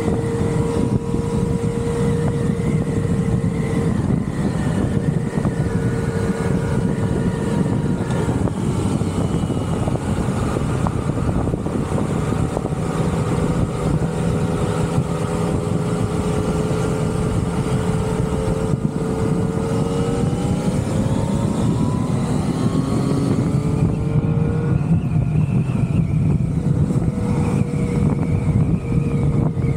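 Engine of a ridden vehicle running under way, with steady wind and road rush; the engine note climbs for a few seconds a little past twenty seconds in as it speeds up.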